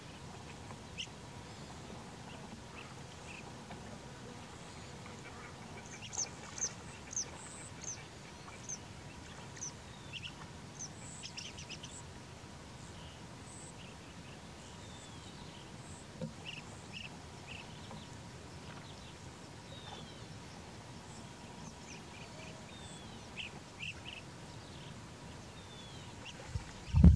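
Birds calling in short, high chirps, scattered through over a faint steady outdoor hiss. A loud, low thump comes right at the end.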